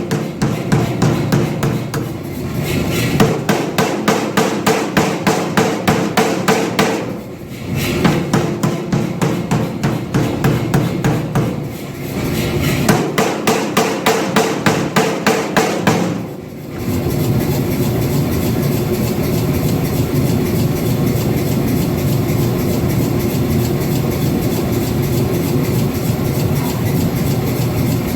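Power hammer striking hot 5160 steel between flat dies: fast, even blows at about five a second in three runs, with two short pauses. About two-thirds of the way through the blows stop, and a steady mechanical hum carries on.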